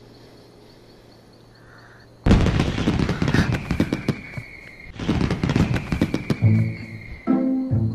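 Fireworks going off: a sudden loud burst about two seconds in, dense with crackling, and a second burst around five seconds. A melodic musical phrase comes in near the end.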